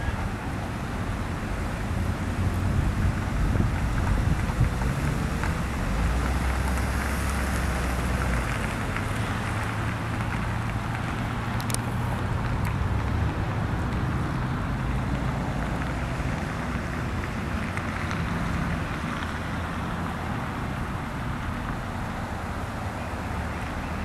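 A low, steady engine rumble whose pitch shifts a little now and then, under an even rushing noise. There is a brief sharp click about twelve seconds in.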